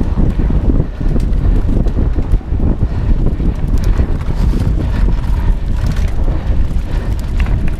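Wind buffeting an action camera's microphone while a mountain bike rattles and thumps over a rough, rocky dirt trail at race pace.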